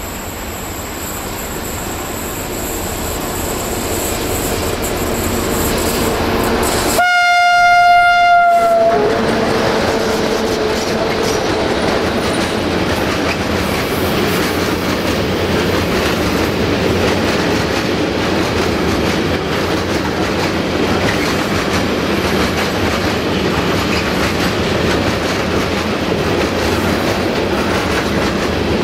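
Freight train approaching and passing close by: the diesel locomotive sounds one long single-note horn blast about seven seconds in, as the sound swells to its loudest. A long string of open freight wagons then rolls steadily past, wheels rumbling on the rails.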